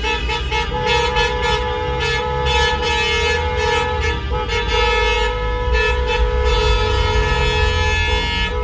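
Several car horns honking at once, held long and overlapping into a steady chorus with brief gaps, over the low rumble of the car driving, heard from inside the car.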